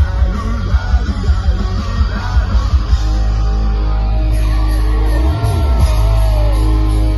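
Live rock band playing loudly: electric guitars and heavy bass under a singing voice.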